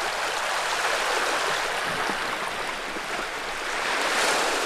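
Seawater washing and lapping, a steady rushing hiss that swells slightly twice.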